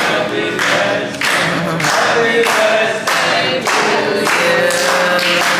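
Several voices singing together over steady rhythmic hand clapping, about two claps a second.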